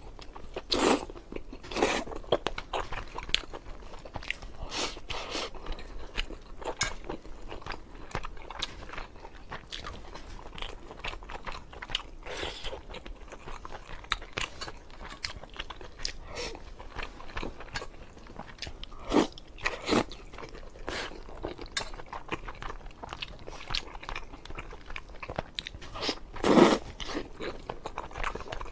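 A person chewing and biting braised pork over rice close to the microphone: irregular wet mouth clicks and crackles, with a few louder bites or slurps.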